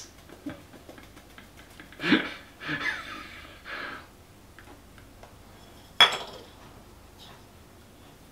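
A man's short breathy chuckle about two seconds in, then a single sharp clink about six seconds in, like a hard object tapping a dish.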